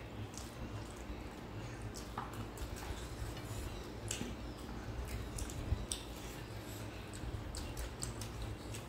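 Close-up eating sounds: chewing and lip smacks with scattered wet clicks, and fingers squishing and mixing rice with mutton curry on plates, over a low steady hum.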